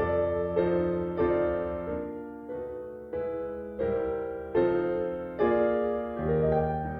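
Slow, gentle piano music: chords struck roughly every two-thirds of a second, each one ringing and fading before the next.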